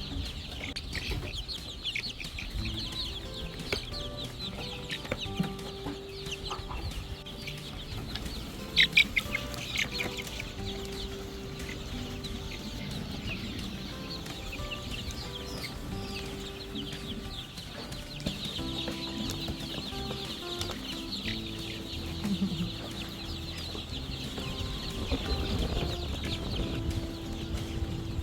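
A flock of month-old layer chicks cheeping, with many short high chirps overlapping and a louder burst of chirps about nine seconds in.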